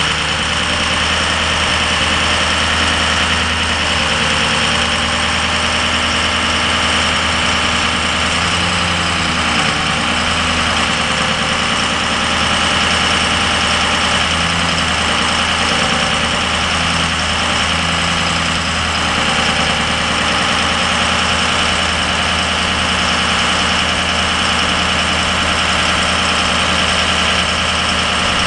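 Ford F550's 6.0-litre V8 diesel engine idling steadily while the PTO runs the Altec bucket boom's hydraulics, with slight shifts in its note twice.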